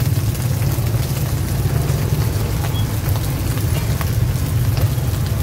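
Sticky rice cakes sizzling in oil on a wide flat pan, with scattered light crackles, over a steady low rumble.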